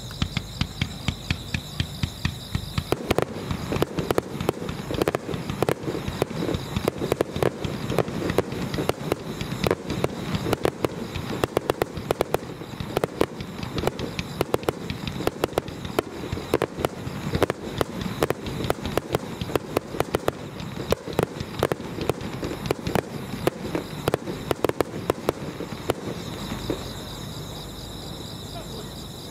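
Starmine fireworks barrage: a dense run of sharp bangs and crackles, many a second, that starts in earnest about three seconds in and thins out near the end. Crickets chirp steadily in the quieter stretches before and after.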